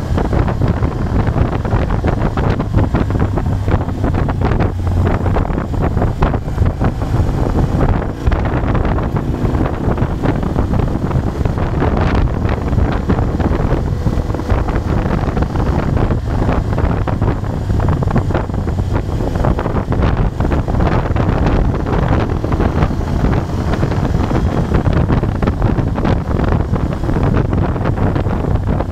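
Moto Guzzi Bellagio's V-twin engine running steadily at a cruise, mixed with wind rushing over the microphone.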